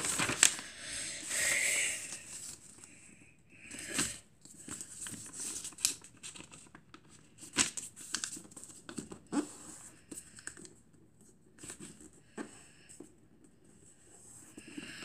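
A sheet of paper being folded lengthwise by hand and its crease pressed flat: irregular rustles, crinkles and short scrapes, loudest in the first couple of seconds.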